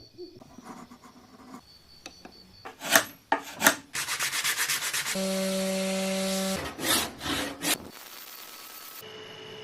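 Sanding and rubbing on the old axe during its restoration, in short cut-together bits: rough scraping strokes, a few sharp knocks, and a steady hum for about a second and a half in the middle.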